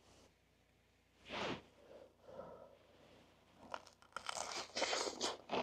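Crisp crust of a toasted pressed sandwich crunching and tearing as it is pulled apart: a short crackle about a second and a half in, then dense crackling from about four seconds in.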